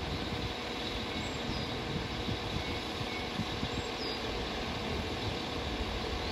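Northern Class 195 diesel multiple unit standing at the platform with its diesel engines idling, a steady hum with a low rumble. A few faint bird chirps sound over it.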